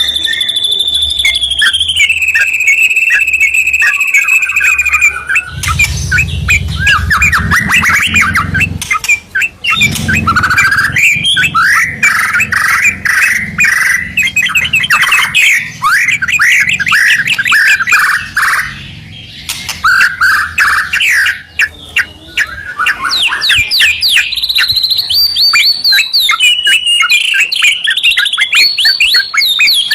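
White-rumped shama and yellow-vented bulbul singing loudly together. Long clear whistles step down in pitch over the first few seconds, then give way to fast trilled phrases and rapid chattering notes, with a brief lull a little past the middle.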